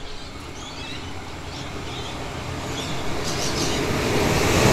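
Adelaide Metro diesel railcar approaching, its running noise growing steadily louder.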